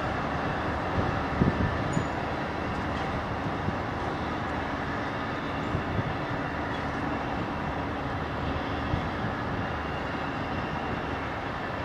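Train running, a steady rumble with a few louder knocks about a second and a half in.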